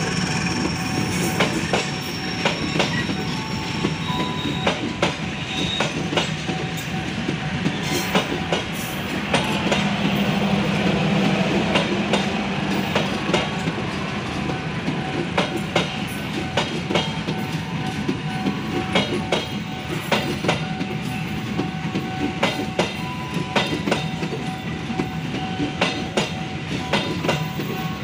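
Passenger train coaches rolling past close by: a steady rumble with repeated clicks of the wheels over the rail joints.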